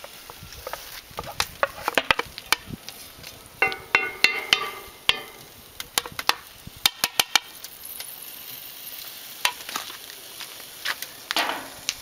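Diced pork fat (salo) tipped into a hot cast-iron skillet and scraped in with a spatula, sizzling and crackling with many sharp pops as it starts to render. A spatula scrapes and clatters against the plate.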